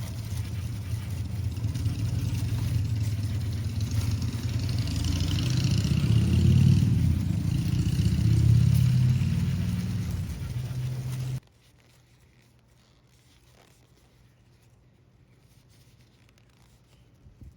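A motor running steadily with a low hum, swelling louder in the middle and then cutting off abruptly about two thirds of the way through, leaving near quiet with a few faint ticks.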